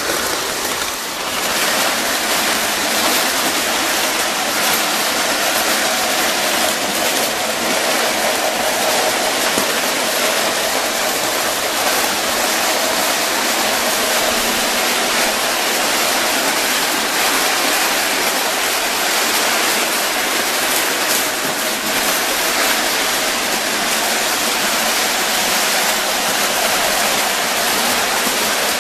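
Lionel and Williams O scale toy trains running on tinplate tubular track: a steady rushing rattle of metal wheels on the tin rails and the locomotive motors, with no breaks.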